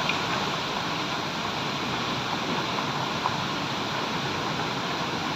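Steady rush of Gatitika Falls and the Diba River pouring over rocks, an even noise of falling and running water.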